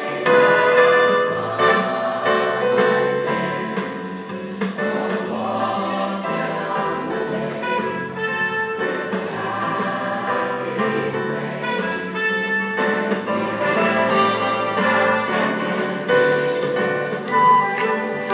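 Mixed choir of boys and girls singing together, a full, steady ensemble sound with no break.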